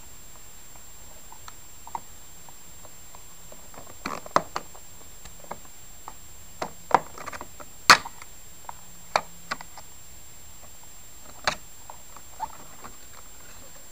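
Plastic trim at the base of a Chrysler Grand Voyager's exterior mirror being pried and pressed to unclip it: scattered sharp clicks and taps, the loudest about eight seconds in.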